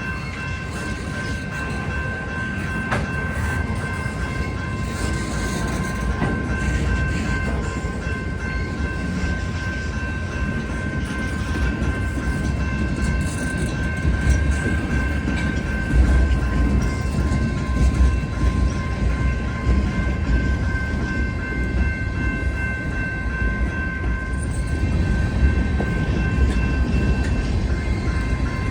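A rail work train carrying continuous welded rail rolling past with a steady rumble that swells somewhat midway, and a continuous high ringing tone held over it throughout.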